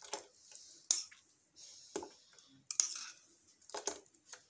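A spoon clinking against china dishes about six times as spoonfuls of milk are scooped and tipped into a bowl of beaten egg, sugar and oil, with brief soft pouring and splashing sounds between the clicks.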